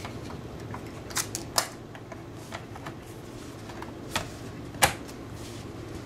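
Plastic clicks and taps as a PiTop laptop case's lid is fitted onto its base and the closed case is handled: several short, sharp clicks, the loudest about five seconds in, over a faint steady hum.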